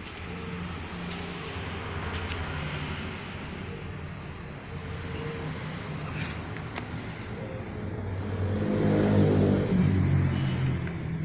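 Suzuki Nex scooter's single-cylinder four-stroke engine idling steadily, revving up briefly about eight seconds in.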